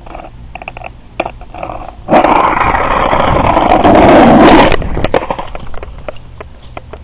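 Skateboard rolling over rough concrete: a few clicks and knocks, then a loud rolling rumble of the wheels from about two seconds in, which drops off sharply near five seconds and fades as the board slows.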